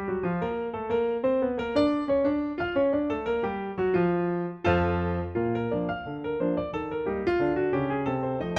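Background music played on piano or electric piano: a rhythmic run of chords and notes, with a new low chord struck about halfway through.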